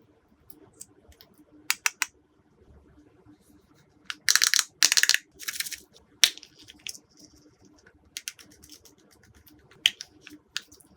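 Glossy slime being worked by hand, giving scattered sharp clicks and pops, with three louder crackling bursts around the middle.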